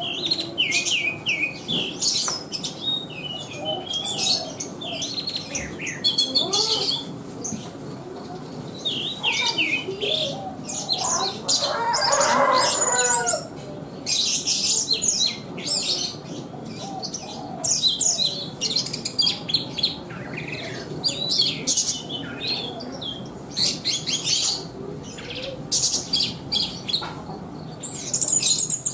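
Thrush (burung anis) singing a long, busy song of rapid, varied high phrases and trills, with a lower, louder warbling passage about midway through.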